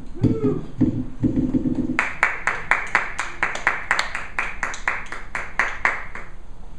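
Applause from a small audience: a handful of people clapping, about five claps a second, starting about two seconds in and dying away near the end.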